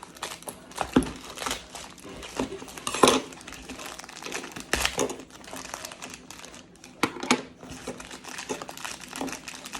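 Packaging crinkling and rustling while a Beyblade toy is unwrapped, with irregular sharp clicks and a few louder snaps, the loudest about a second in and about three seconds in.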